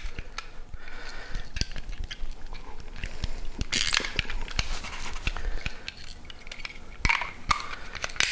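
Plastic clicks, taps and rattles from the small carrying case and colour-coded vials of a Magnaflux Spot Check dye-penetrant kit being handled and clicked together. There are brief rustles about four seconds in and again near the end.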